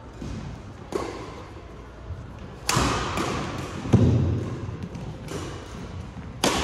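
Badminton rally: rackets smacking the shuttlecock about every second and a half, each hit sharp and echoing in a large hall, with a heavier low thud about four seconds in.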